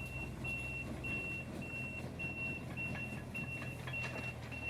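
Machine reversing alarm beeping steadily on one high tone, a little under twice a second, over the low steady hum of a diesel engine running, typical of a Kubota KX41-3V mini excavator travelling.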